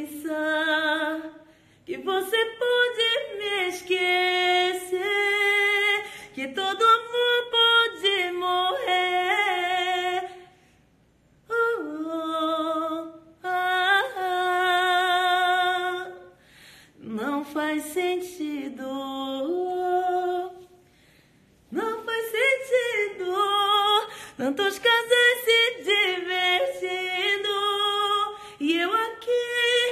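A woman singing a cappella, with a wavering vibrato on held notes, in phrases broken by short pauses.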